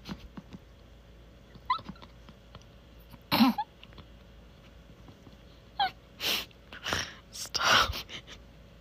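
A person's short, sharp puffs of breath through the nose and mouth, scattered, the loudest about three and a half seconds in and a cluster near the end. Two brief high squeaks come between them, about two seconds and six seconds in.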